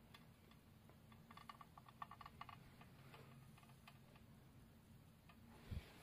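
Near silence: faint room tone, with a cluster of small quick ticks about one to two and a half seconds in, a few scattered ticks after, and one soft low thump near the end.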